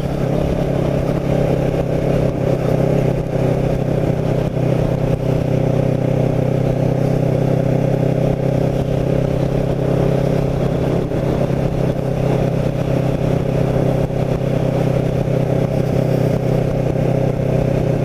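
Kawasaki Ninja 650R's parallel-twin engine running steadily at an even cruising speed, with wind rumble on the microphone.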